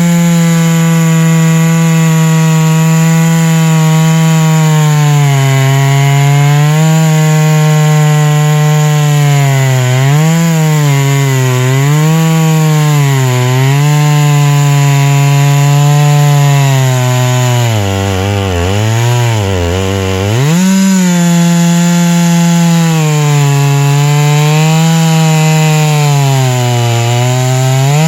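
A chainsaw cuts lengthwise along a white spruce log, its engine held under load at high speed. The pitch wavers as the cut goes, sags about two-thirds of the way through as the engine bogs, then picks back up.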